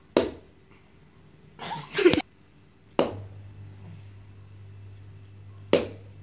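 Four short, sharp sounds like taps or slaps, a few seconds apart; the second is a longer, rougher cluster. A low steady hum starts about halfway through.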